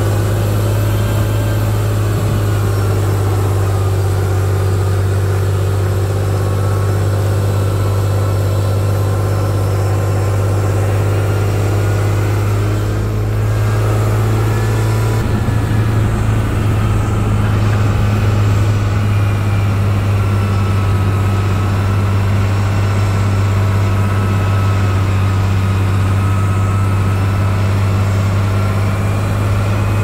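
Heavy diesel engine of an earthmoving machine running steadily with a strong low hum, dipping briefly near the middle before carrying on.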